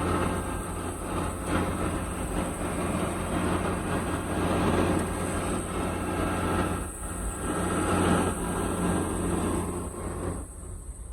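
Engine of heavy road-works machinery running steadily with a constant low hum, easing off near the end.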